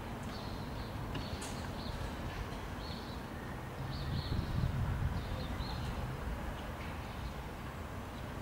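Railway platform ambience: a steady low rumble that swells briefly around the middle, with short high bird chirps now and then.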